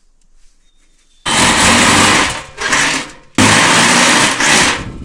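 Power drill working into steel, run in several short trigger bursts starting about a second in.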